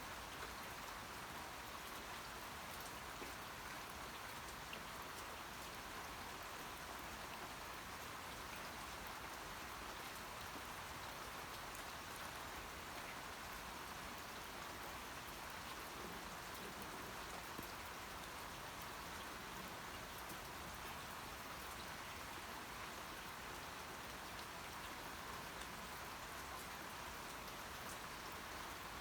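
Steady rain falling, with a constant hiss and many individual drops pattering on a surface.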